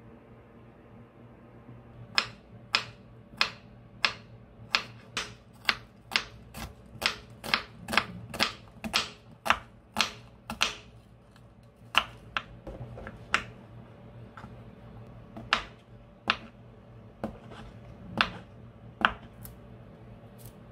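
Kitchen knife cutting vegetables on a wooden cutting board: sharp, separate knocks of the blade striking the board. They start about two seconds in at about two a second and thin out to scattered cuts later.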